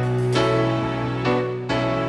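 Background music: a soft instrumental with sustained notes changing every half second or so.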